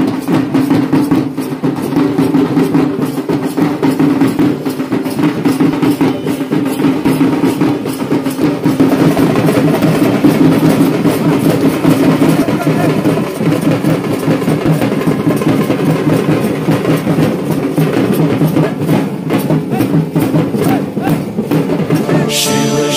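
Fast, dense drumming on large barrel drums beaten with thin sticks, with voices singing along. Near the end, a clearer chanted or sung vocal comes in.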